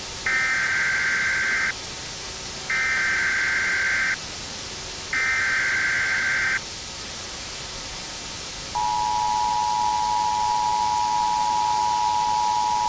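Emergency Alert System tones: three short bursts of digital header data, each about a second and a half long, then, about nine seconds in, the steady two-tone EAS attention signal begins.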